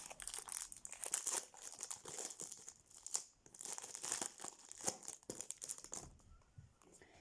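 Foil trading-card pack being torn open and crinkled by hand: irregular crackling and crumpling with small tearing sounds, easing off about six seconds in.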